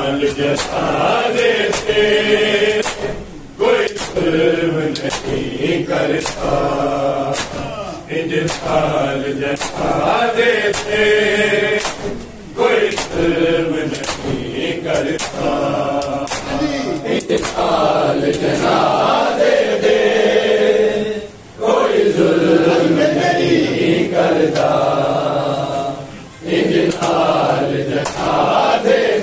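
Men chanting a noha for Imam Hassan in chorus, with a steady beat of open-hand chest slaps (matam) under the voices. The chant breaks briefly between lines, a few times.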